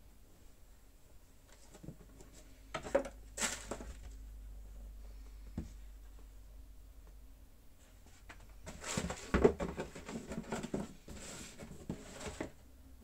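A cardboard shoebox being handled: a few sharp knocks and taps a few seconds in, then a longer stretch of scraping and rustling of cardboard and paper near the end as the box is lifted and turned.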